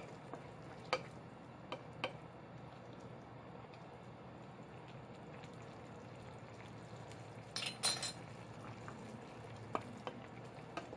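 Komatsuna and clam broth in a stainless steel pot on an induction hob, stirred with a wooden spoon, under a low steady bubbling hiss. Light clicks of the spoon and utensils come now and then, with a short burst of clinks about eight seconds in.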